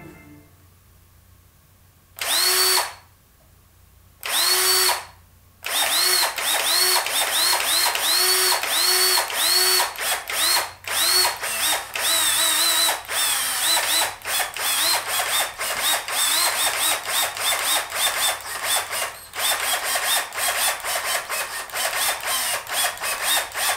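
Cordless drill run in short trigger pulls. Two brief whirs come a couple of seconds in, then from about six seconds on a rapid string of quick spin-ups, about two a second, each a short rising whine as the trigger is squeezed and let go.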